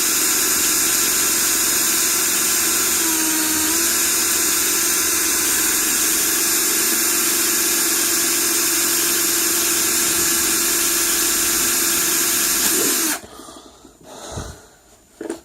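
Electric drill running steadily under load as it bores a hole through a wooden box, a constant whir with a steady hum. Its pitch drops slightly about three seconds in, and it stops abruptly near the end.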